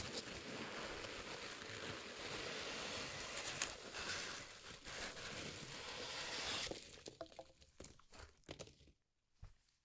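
Packaging being unwrapped: a continuous crinkling and crumpling for most of the time, breaking up near the end into a few separate rustles and clicks before it goes quiet.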